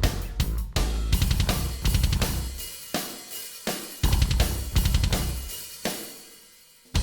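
Rock music with a drum kit playing: kick drum, snare and cymbals over bass. It breaks off twice and fades nearly out just before the end, when the full band comes back in.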